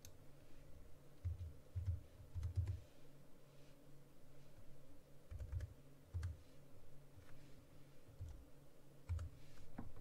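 Faint, irregular typing on a computer keyboard with a few mouse clicks: scattered light keystrokes and several dull low thumps.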